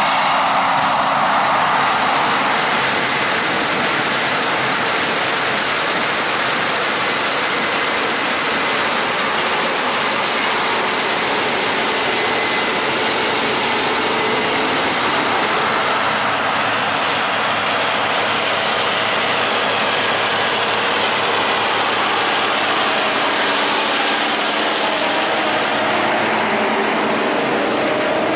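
Large diesel farm machinery running steadily under load, a dense, loud mechanical noise with a few faint steady tones. The higher hiss shifts about halfway through and again near the end.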